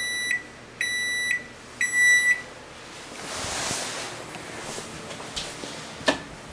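Samsung SMH9187ST over-the-range microwave's control panel beeping, three half-second beeps about a second apart, the alarm that goes with its SE error code, the sign of a failed membrane keypad. A soft hiss follows, and a single click near the end.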